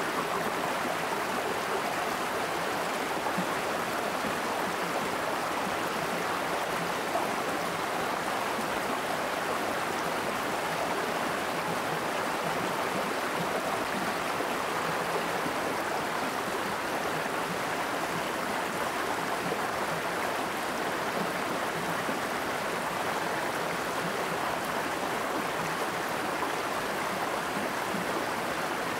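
Shallow stream rushing steadily over a stony bed.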